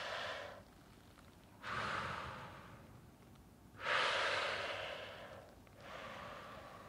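Slow, close breathing through a cotton face mask: long airy breaths every couple of seconds, the loudest about four seconds in.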